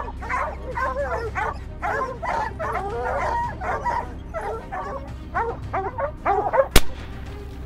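Pack of hunting dogs barking and yipping, many short overlapping calls. A single sharp bang comes near the end and is the loudest sound.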